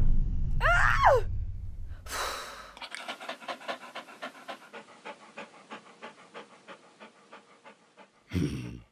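Rapid, even panting, about four or five breaths a second, fading out gradually. Before it there is a short gliding cry about a second in and a brief hiss, while a low rumble dies away; a short voiced sound comes near the end.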